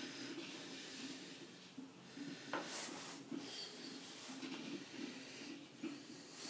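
Soft rubbing and handling noises from a steel taper plug gauge being handled for a blue-marking check of a freshly ground ER40 collet taper, with one light click about two and a half seconds in.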